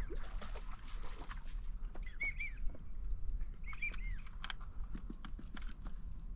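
American wigeon whistling: short clusters of two or three rising-and-falling whistled notes, about two seconds in and again about four seconds in. Wind noise and small clicks run underneath.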